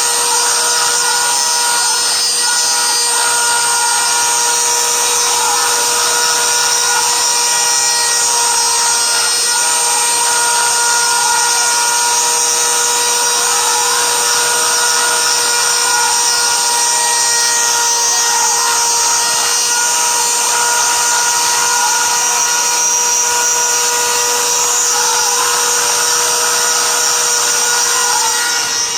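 Cyclone desktop CNC mill cutting a bowl: the spindle motor runs at a steady high pitch while the stepper motors whine up and down in pitch in a repeating pattern about every two seconds as the axes move through the toolpath.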